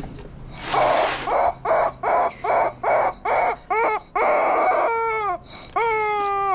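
Rubber screaming-chicken toy squeezed by hand: a quick run of about eight short squawks, then longer wailing screams near the end that sound like a baby crying.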